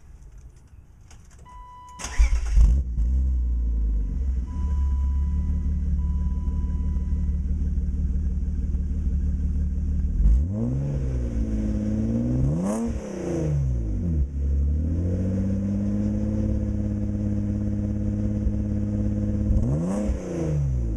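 A BMW E36's engine starting through a newly fitted aftermarket stainless cat-back exhaust with twin tips, then idling with a throaty note and revved up and back down three times. The revs come about ten, twelve and twenty seconds in.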